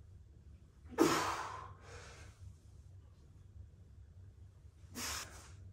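A man breathing out hard while doing barbell squats: a strong breath about a second in, a softer one just after, and another near the end.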